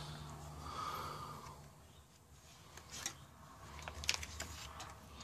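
Foil MRE retort pouch being pulled open by hand: soft rustling and crinkling, with a few short crackles about three and four seconds in.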